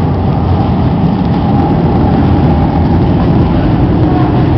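Loud, steady low rumble and rubbing noise on a gun-mounted camera's microphone as the airsoft gun is carried on the move.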